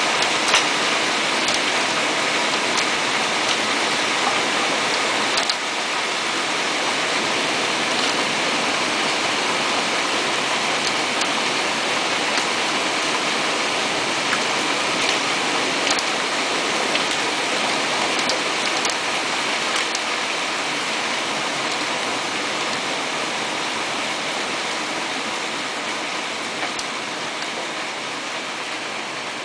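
Hailstorm: hail pelting a roof, street and lawn, a dense steady hiss with scattered sharp ticks of individual stones striking close by. It slowly eases toward the end.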